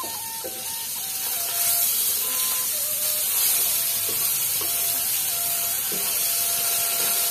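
Fish pieces sizzling in hot oil in a wok, a steady hiss that grows louder about a second and a half in as the pieces are turned.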